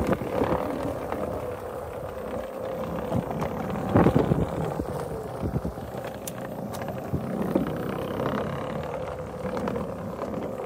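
A Onewheel Pint X electric skateboard rolling along a wooden boardwalk, with a steady hum from its hub motor over tyre rumble. Scattered knocks come as the wheel crosses the boards, the loudest about four seconds in.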